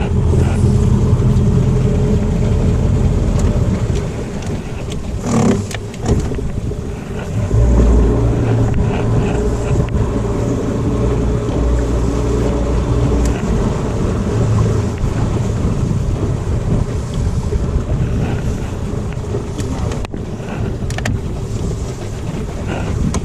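Boat's outboard motor running at low speed, its note and level shifting several times as the throttle is worked. There is a single knock about five seconds in.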